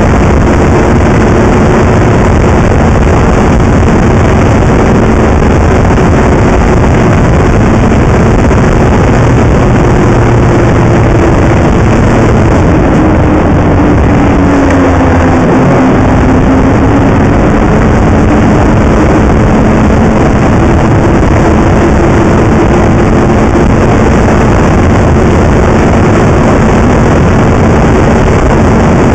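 Snowmobile engine running steadily as the sled travels along a snow trail, with wind rushing over the microphone. The engine note dips about halfway through, then climbs back and holds.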